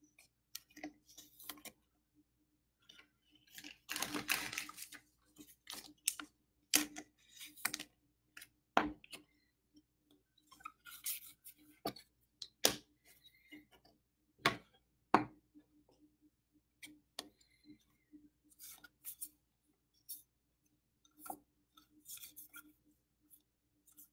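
Baseball trading cards and pack wrappers being handled: quiet scattered clicks and snaps as cards are flicked and shuffled, with a longer crinkle about four seconds in and two sharper snaps about two-thirds of the way through.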